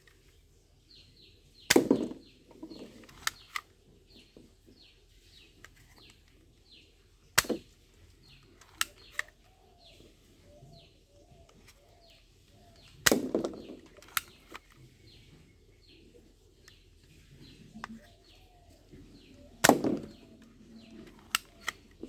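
Toy gun firing four sharp snaps about six seconds apart, each followed by one or two lighter clicks of the mechanism. A small bird chirps over and over, and a dove coos faintly.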